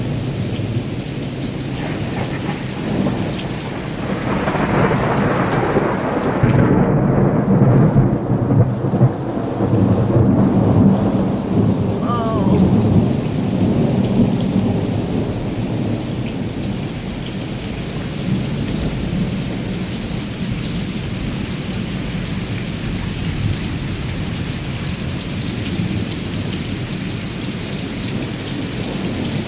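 Steady rain falling during a thunderstorm, with a long roll of thunder that swells about four seconds in, is loudest a few seconds later and rumbles away over the following several seconds.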